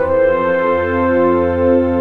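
Background music: slow held chords over a low bass, moving to a new chord right at the start.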